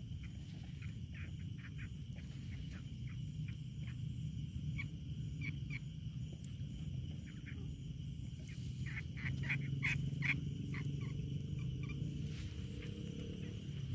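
Night chorus at a riverbank: frogs croaking in short, irregular calls that come thickest about nine to ten and a half seconds in, over steady high-pitched insect trilling and a low rumble.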